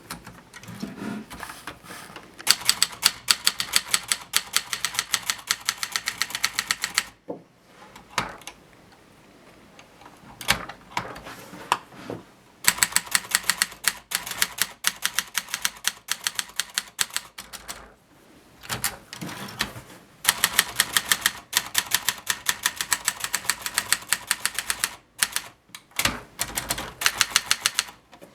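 Tessy portable typewriter being typed on: quick runs of key strikes, several a second, broken by short pauses and a few single strikes.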